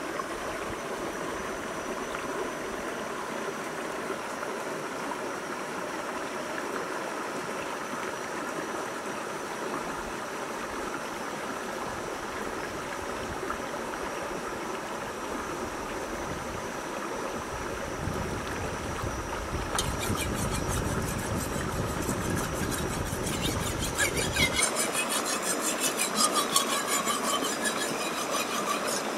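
Shallow river running over rocks. In the last few seconds, repeated rough strokes of a large knife blade being sharpened on a wet river stone.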